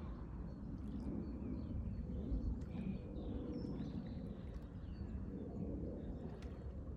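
Outdoor nature ambience: a steady low rumble with faint, scattered bird chirps and short calls.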